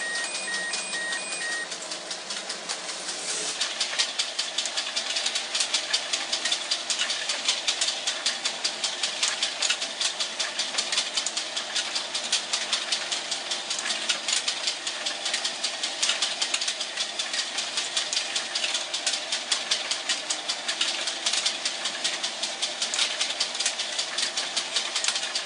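Toy model train running, with a rapid, steady clicking and a steady mechanical hum; it gets louder about three to four seconds in.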